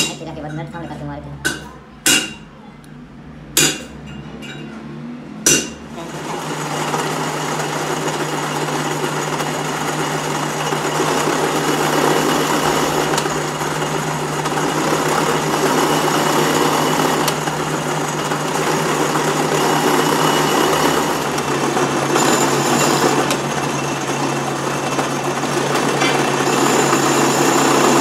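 A few sharp metallic clinks, then about six seconds in a metal lathe starts and runs steadily, a low motor hum under the noise of its cutting tool turning down and threading the end of a steel gear shaft.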